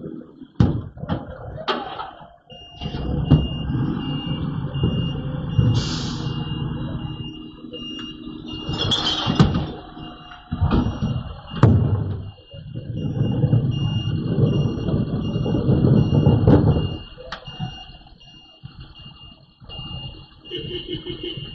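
A garbage truck's reversing beeper beeping steadily over its running diesel engine, with repeated sharp bangs and clangs and two short air hisses.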